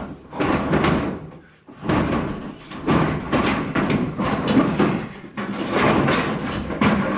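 Loud banging and rattling in several bursts about a second long, with short breaks between them.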